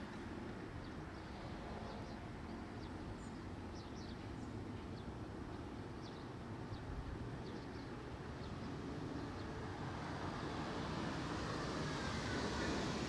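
Steady outdoor rumble of a vehicle, growing louder from about two-thirds of the way in as it approaches, with a faint falling pitch near the end. Faint, short high chirps sound here and there in the first part.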